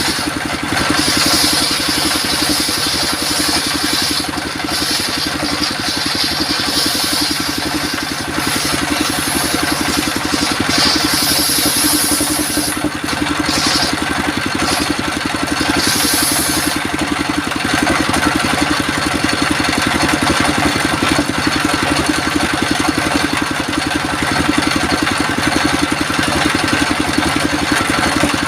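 Circular sawmill running steadily with a low engine-like drone, and a high hiss coming and going over the first seventeen seconds or so as the blade cuts coconut wood.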